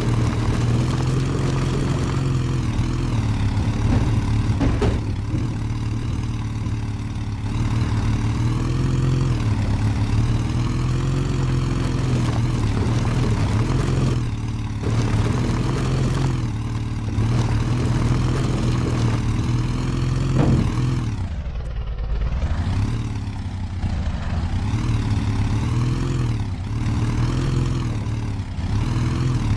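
An off-road 4×4's engine running under load, its revs rising and falling as it crawls over rough ground, dropping off and picking up again about two-thirds of the way through. A few brief knocks sound over it.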